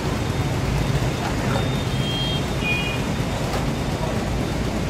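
Steady low rumble of vehicle engines and road traffic, with a few short high-pitched beeps around the middle.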